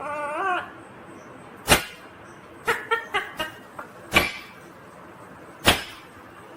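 Ringneck parrot calling: a short warbling, wavering call at the start, then a series of sharp, very short calls about a second or so apart, with a quick cluster of several near the middle.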